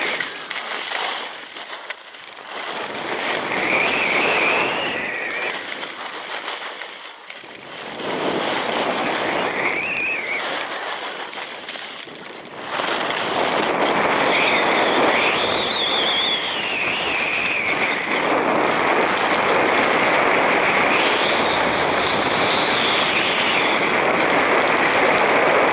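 Skis scraping and carving on hard-packed snow in turns, the sound swelling and dropping every few seconds, with a high edge screech that rises and falls within each turn. About halfway through it becomes a steady, louder rush of skis running fast with wind over the microphone.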